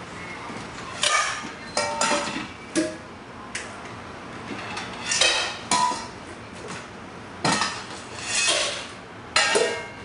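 Dishes and bowls clattering and clinking on a kitchen counter as food is laid out, in about nine separate bursts, some short knocks and some longer rattles.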